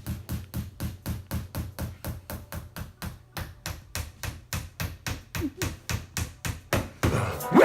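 Rapid, evenly spaced knocking, about six knocks a second over a steady low hum, growing louder toward the end.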